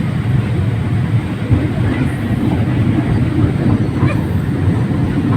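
Toy train running, a steady rumble heard from aboard a carriage.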